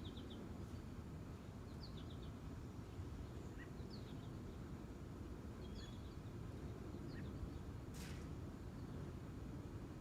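Small birds chirping in short scattered calls over a faint steady low rumble, with one brief burst of noise about eight seconds in.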